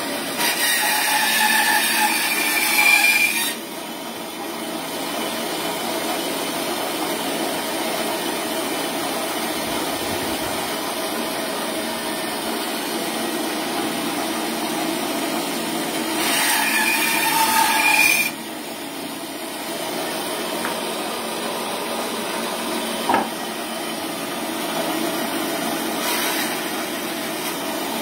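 Full Boar bandsaw running steadily while its blade cuts through raw, unprocessed bone. Twice, near the start and again about two-thirds of the way through, the sound grows louder and harsher for about three seconds as the blade works through a bone, then drops off suddenly when the blade cuts through.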